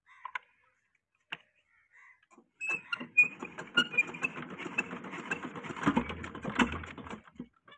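Petter diesel engine being hand-cranked for a cold start: a couple of clicks from the crank handle, then a dense clattering rattle of the turning engine that starts about two and a half seconds in and stops about seven seconds in.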